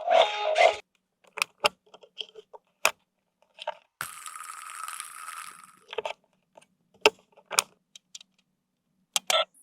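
Clicks and taps of hard plastic being handled, with a rustle of packaging from about four to six seconds in. A pitched, pulsing sound cuts off just under a second in.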